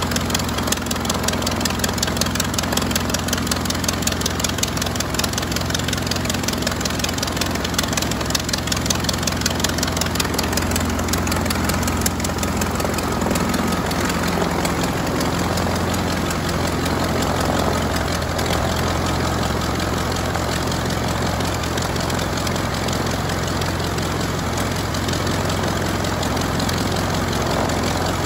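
Curtiss OX-5 water-cooled V8 engine of a 1928 Command-Aire biplane running steadily on the ground, turning its wooden-looking two-blade propeller, with an even, unbroken engine note throughout.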